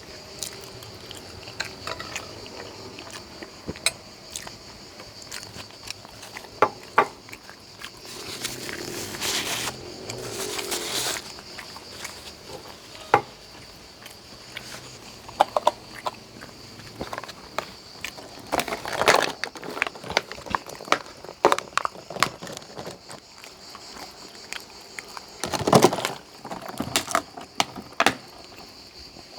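Close-up eating sounds: chewing and mouth noises, with scattered sharp clicks and clinks of cutlery against a plate.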